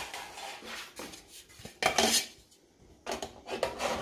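Metal lidded loaf tin and its sliding lid clattering and scraping as the lid is handled and pushed onto the tin. There is a loud clank about two seconds in and a quick run of knocks and scrapes near the end.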